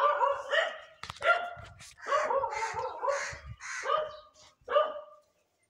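A dog barking repeatedly in short, high-pitched yelping calls.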